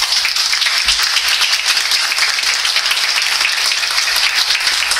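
A small group of people applauding, many hands clapping together at an even level.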